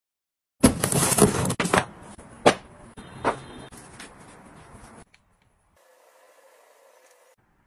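Handling noises: a burst of rustling with several knocks, then two sharp taps, then softer scuffing of hands rubbing a bath mat flat on a tiled floor. A faint hiss follows near the end.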